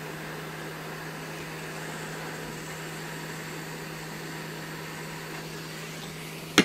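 Hot air rework station blowing hot air onto heat shrink tubing over a soldered wire join: a steady hiss of air with a low hum. A few sharp knocks near the end.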